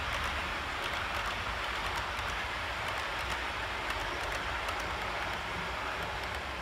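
OO gauge model HST train running along the layout track: a steady rushing noise of wheels on rails, with faint irregular ticking.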